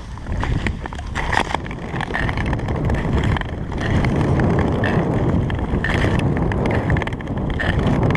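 Long-distance Nordic ice skates gliding and scraping over lake ice, a steady rumbling hiss with wind on the microphone and repeated short clicks of ski-pole tips striking the ice. It grows louder about four seconds in.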